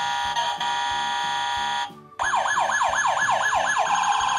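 Electronic siren sounds from a Fireman Sam Jupiter toy fire engine: a steady electronic tone that stops about two seconds in, then after a short break a fast siren of rapidly repeating falling sweeps that settles into a steady tone near the end.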